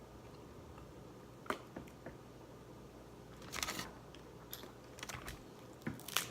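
Close-up eating sounds from a seafood boil: scattered small clicks and one short crackle about three and a half seconds in, from handling and biting crab shell and chewing.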